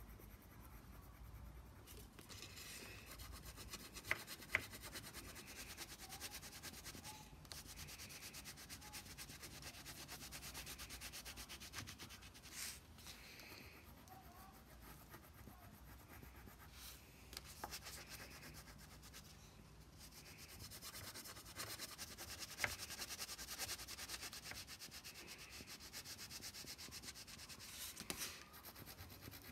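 Wax crayon being rubbed quickly back and forth over a paper plate to colour it in, faint, with brief pauses a few times.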